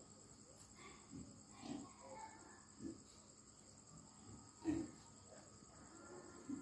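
Crickets chirping in a steady high trill. Under it come several short, soft low sounds about a second apart, the loudest about two-thirds of the way in.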